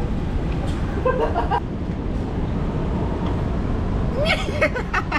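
A person's high, wordless voice making witch-like sounds: a short cry about a second in, then a quick string of rising-and-falling cries near the end, over a steady low background rumble.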